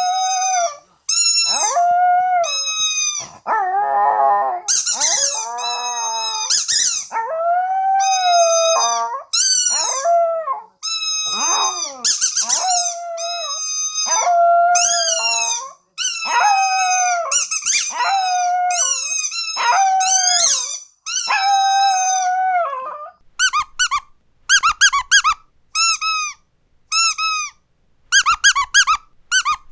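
A dog howling in long, wavering, rising-and-falling cries, one after another. About 23 seconds in, the howls stop and a squeaky dog toy is squeezed over and over in quick short squeaks.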